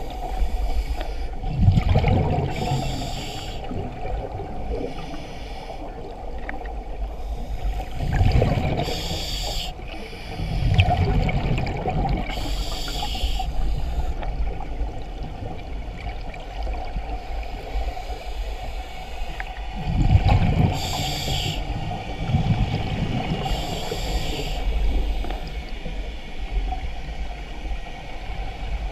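A scuba diver breathing through a regulator, heard underwater through a GoPro housing: a hissing inhalation about six times and bursts of exhaled bubbles between them, over a steady low water noise.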